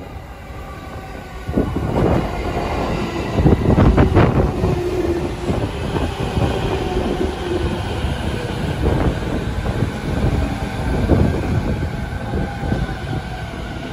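JR East 209-series electric train pulling into the platform and slowing, its wheels clacking over rail joints. A steady tone is heard for a few seconds in the middle.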